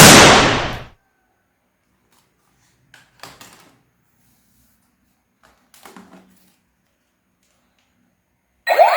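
A single loud bang that dies away over about a second, followed by two brief spells of faint clicking and handling; just before the end a loud electronic sound with sweeping tones starts.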